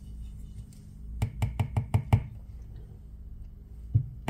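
Sunshine SS-601G phone back-cover opening fixture being turned: a quick run of about six sharp clicks, then a single click near the end, over a low steady hum.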